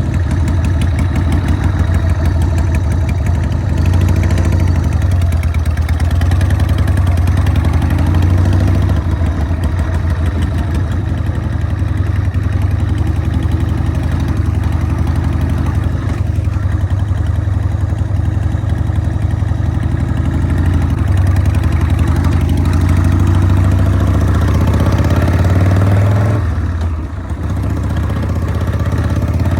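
Harley-Davidson Sportster chopper's air-cooled V-twin engine running under way, its note rising and falling several times with the throttle, with a brief dip in level a few seconds before the end.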